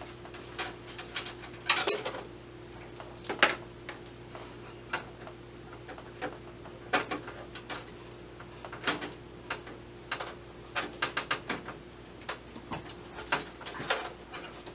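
Scattered small metal clicks and taps as screws are backed out and a computer case's slot covers are handled, loudest about two seconds in, over a faint steady hum.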